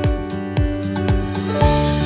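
Background music: a guitar-led instrumental with a steady beat of about two strokes a second.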